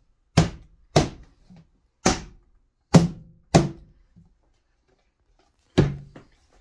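Hand slapping down the snap-on plastic lid of a 5-gallon fermenting bucket to seal it: about seven sharp thumps at uneven intervals, with a pause of nearly two seconds before the last two. The lid is hard to seat on the overfilled bucket.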